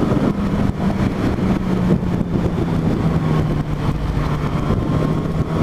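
Yamaha FZ8's inline-four engine running at low, steady revs, its note dipping slightly about halfway and rising again near the end, with wind buffeting the microphone.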